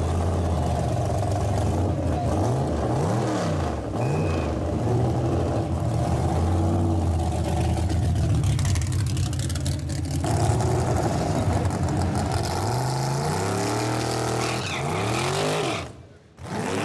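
Loud, roughly idling engine of a 1200-horsepower Nissan Skyline C10 'Hakosuka' drag car, with the throttle blipped into quick revs a few times, clustered toward the end.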